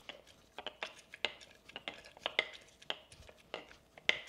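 Metal muddler crushing mango cubes in the bottom of a glass: a series of short knocks and clinks, about two or three a second, as it is pressed and twisted against the glass.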